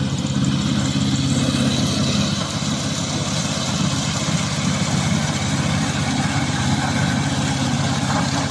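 Vigorun VTLM800 crawler remote-control mower's gasoline engine running steadily.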